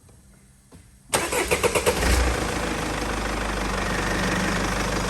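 Mercedes E220 CDI's four-cylinder diesel engine being cranked by the starter about a second in, catching after about a second of cranking and settling into a steady idle. The car is being started from a jump-start power pack on a flat battery.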